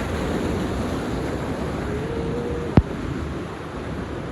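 Steady rushing of the waterfall's stream. A single sharp click cuts through it about two-thirds of the way in.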